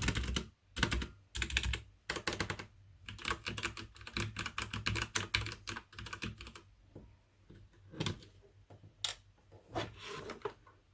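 Typing on a HyperX Alloy FPS Pro mechanical keyboard with Cherry MX Red linear switches: a fast run of keystrokes that thins out about two-thirds of the way through to a few single key presses.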